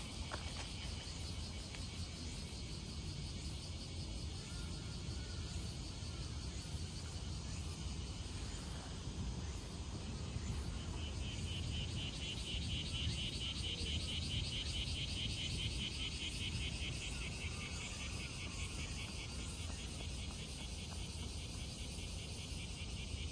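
Insects chirring steadily in a fast pulsing high drone that swells about halfway through and fades back a few seconds before the end, over a steady low rumble.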